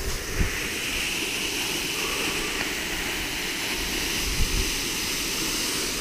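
Waterfall running high after heavy rain, a steady rush of falling water. A couple of brief low thumps cut through it, about half a second in and again about four and a half seconds in.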